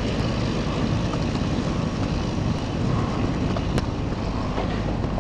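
Steady low rumbling noise of wind buffeting the microphone of a handheld camera.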